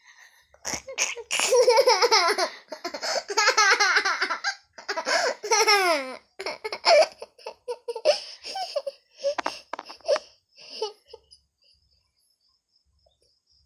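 A young child laughing hard in repeated high-pitched runs for about ten seconds, dying away near the end.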